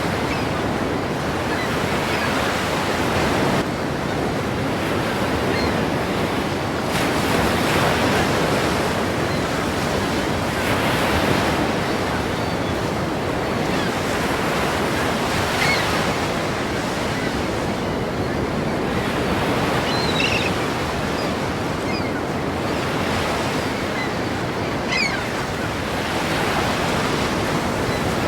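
Ocean surf: waves breaking and rushing in a continuous wash that swells every few seconds.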